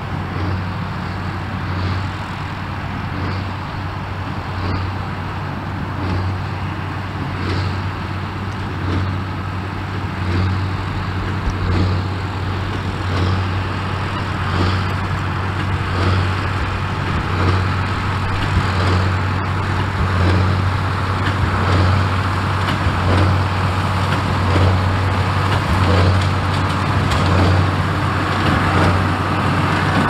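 Straight-piped New Holland 8970 tractor's six-cylinder turbo diesel working under load while pulling a square baler. The engine note swells in a regular beat a little over once a second as the baler's plunger strokes, and it grows louder as the tractor comes closer.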